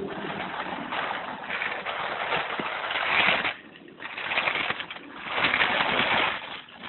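Plastic baby-walker wheels rolling and rattling over a rough concrete path, in three uneven stretches with short pauses between them.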